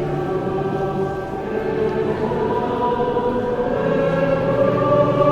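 Choir singing slow, held chords that shift to a new chord about halfway through.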